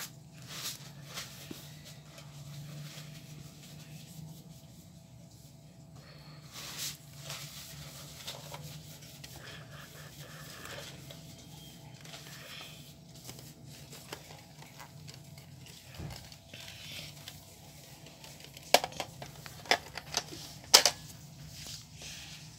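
Handling of plastic foam-dart toy blasters and darts: scattered light clicks and taps, with a few sharper plastic clacks near the end, over a steady low hum.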